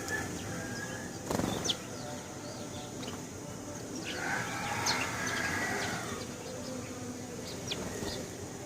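House sparrows chirping in short, scattered notes, with a brief loud flutter or thump about a second and a half in and a muffled mid-pitched sound in the middle.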